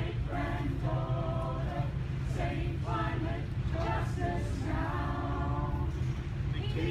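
A group of marchers singing together, holding notes of about a second each in short phrases, over a steady low rumble.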